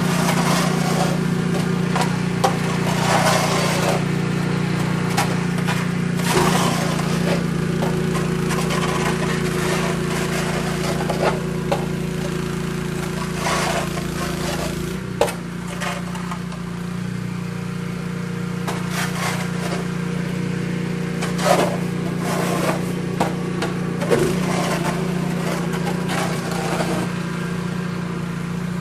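A small engine running steadily, with irregular scraping and crackling noises and sharp clicks over it.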